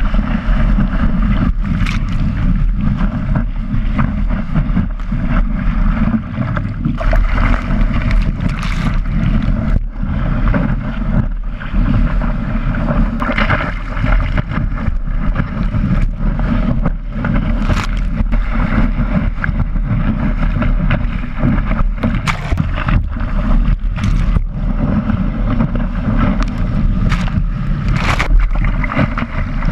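Wind buffeting a board-mounted camera's microphone while water rushes and splashes past a surfboard riding a wave. The rumble and hiss run on without a break, with frequent short splashes of spray.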